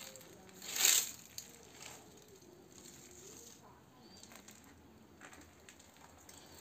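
A single short crunching rustle about a second in, then faint scattered rustling, with faint voices in the background.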